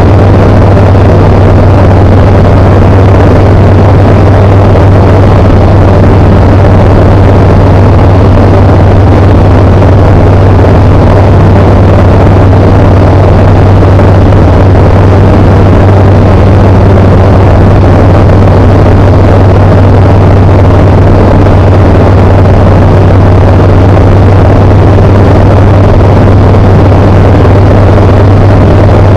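Tecnam P92 light aircraft's Rotax 912 engine and propeller running steadily as a loud, even drone, with a strong low hum and no change in pitch.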